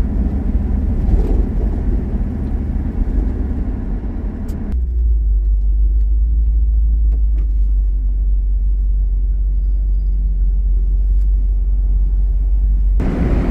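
Steady low rumble of a car on the move, the engine and road noise of a 1971 Dodge Challenger convertible. About a third of the way in the sound turns duller and deeper, and the fuller rumble comes back near the end.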